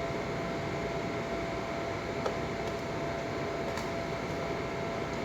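Steady background hum with a thin constant tone, and a faint click about two seconds in.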